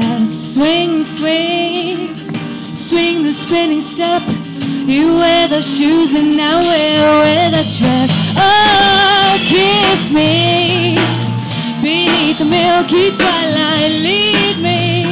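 Live band playing a song: a young woman sings lead into a microphone, holding notes with vibrato, over electric guitar, bass guitar and drum kit. The bass line becomes stronger about halfway through.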